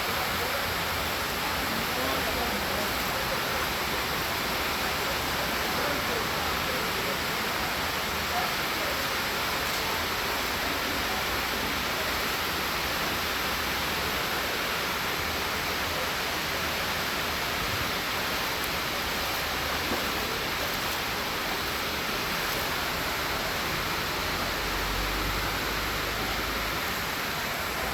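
Heavy rain falling steadily, a dense, even hiss of water.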